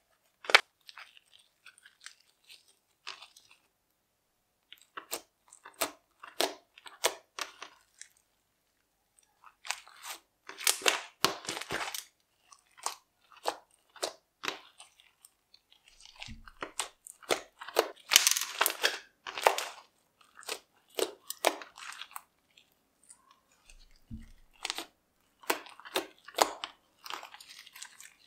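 Jelly-like, slightly runny glitter slime squeezed and stretched by hand, giving quick sticky clicks and pops in bursts of a few seconds, with short pauses between them.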